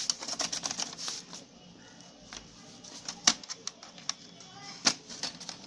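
Prying open a Lenovo G580 laptop's plastic case with a tool pushed into the seam: a run of sharp plastic clicks and snaps as the clips let go, the loudest two about three and five seconds in.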